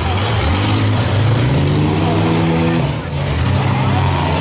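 Engines of several minivans and SUVs in a demolition derby running and revving on the dirt track. One rev climbs in pitch from about one and a half seconds in, then eases off about three seconds in.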